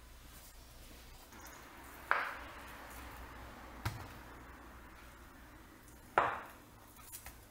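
Chef's knife slicing down through a block of Spam and striking a wooden cutting board twice, each a sharp knock with a short fading tail, with a lighter tap in between.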